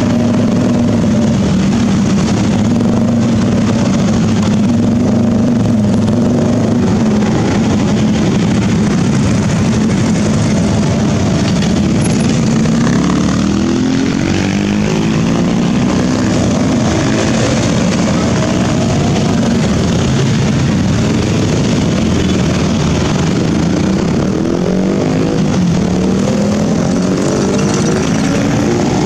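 Motorbike and scooter traffic: many small engines running close by, their pitch rising and falling as bikes rev and go past, most clearly in the middle and near the end.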